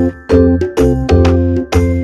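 Background music: chords over a bass line on a steady beat, about two to three chords a second.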